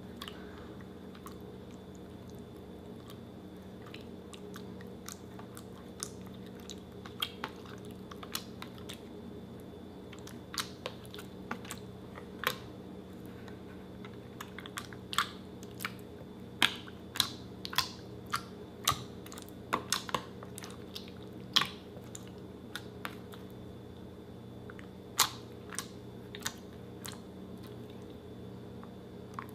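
Clear water slime being squeezed and poked by hand, making irregular sharp wet clicks and pops. The clicks come thickest in the middle stretch, over a steady low hum.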